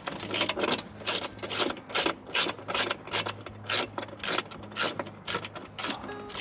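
Ratchet wrench clicking in repeated short strokes, about two to three a second, as a fastener is backed out of a door-catch bracket. A faint steady low hum sits underneath.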